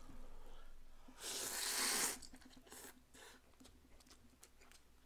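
A person blowing on a chopstick-load of hot jjamppong noodles to cool them: one breathy rush of air lasting about a second, followed by a few faint small clicks.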